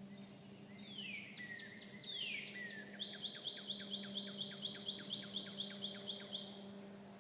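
A songbird singing: two long, clear whistles slurring downward, then a rapid trill of short falling notes at about four to five a second for a few seconds. A steady low hum runs underneath.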